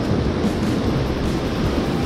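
Steady rushing noise of ocean surf washing on the shore, with a low rumble of wind on the microphone.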